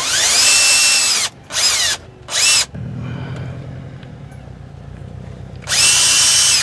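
Cordless drill boring out a stripped bolt hole in an aluminum engine block through a tap guide. The motor whine rises in pitch as it spins up and runs for about a second, comes back in two short bursts, and runs again near the end.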